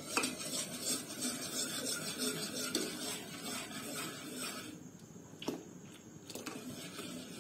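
Wire whisk stirring hot milk in a steel pot, its wires clinking and scraping against the metal sides as custard mix goes in, with a short lull about five seconds in.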